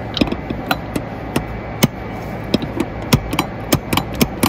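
Sharp metallic clicks and knocks, about a dozen at an irregular pace, as a socket bar is worked on the belt tensioner bolt of a DAF CF85 truck engine, over a steady low hum.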